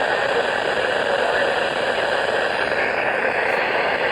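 Steady radio static hiss from a receiver tuned to a weak, distant NOAA Weather Radio station.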